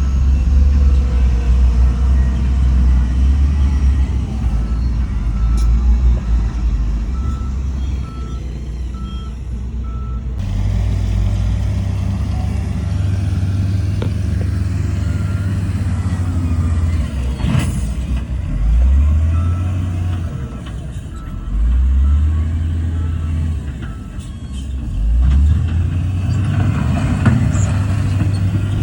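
Heavy diesel earthmoving machinery running, its engine revving up three times in the second half. A reversing alarm beeps at an even pace in two stretches.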